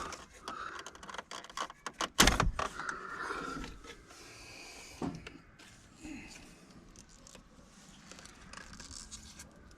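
Hands handling wiring and small parts: scattered light clicks, rattles and rustling, with one louder knock about two seconds in.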